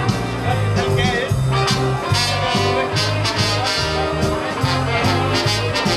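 Live band playing loud amplified music with a bass guitar and a brass horn, over a steady beat with strong bass notes.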